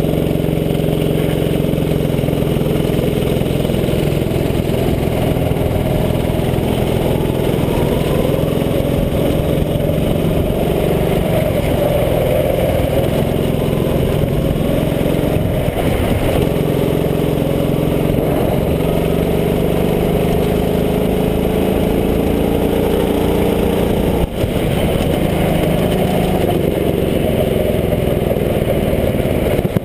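Racing kart's engine running hard, recorded onboard, its pitch rising and falling as the driver accelerates down the straights and lifts for the corners.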